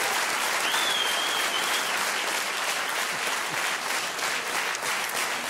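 Studio audience applauding steadily, with one high held note rising above the clapping about a second in.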